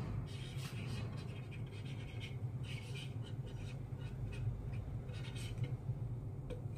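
White paint marker scratching across the plastic casing of a Yonex badminton stringing machine in short, irregular strokes as a signature is written, over a steady low hum.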